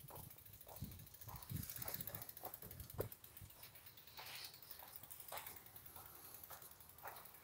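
Bicycle rolling over a rough, sandy path: faint, irregular rattles, clicks and knocks with soft low rumbles.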